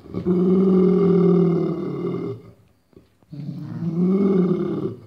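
Dog making two long, low, guttural growling vocalizations of about two seconds each, a growl-like "singing".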